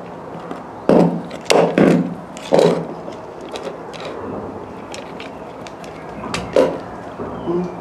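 A series of wooden knocks and clunks: three in quick succession about a second in, another shortly after, and two more near the end, as small objects are handled and set down on a wooden table top.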